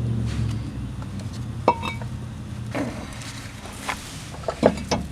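Light metallic clinks and clicks from tools and parts being handled at a truck's wheel hub, a few scattered strikes. A low hum fades out just after the start.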